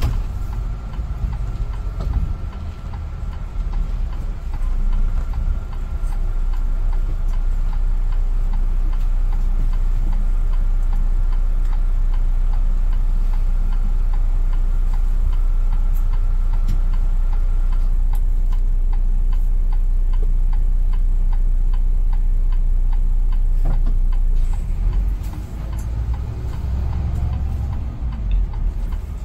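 City bus engine idling with a steady low rumble while the bus waits at a red light, with a faint regular ticking in the second half. Near the end the rumble turns uneven as the bus pulls away.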